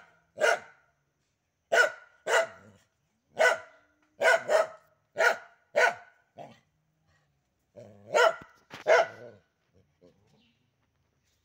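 A dog barking at a cat in a run of about a dozen short, sharp barks that stop about nine seconds in.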